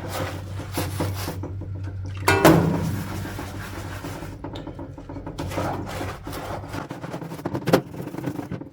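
Hand scrubbing of a rusty camshaft: irregular scraping and rubbing strokes against the metal, with a steady low hum underneath. A louder knock comes about two seconds in and a sharp click near the end.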